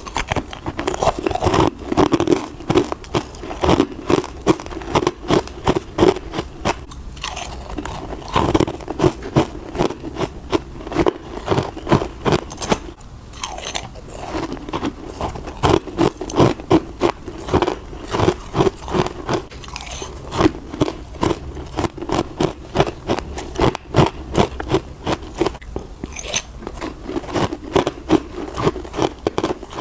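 Close-up crunching of teeth biting through hard frozen passion fruit ice pieces mixed with crispy dry frost: rapid, crackly bite after bite, pausing briefly a few times.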